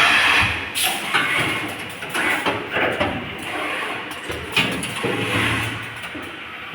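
Automatic wire harness processing machine running its cycle: irregular air hisses from its pneumatic actuators, with scattered sharp clacks.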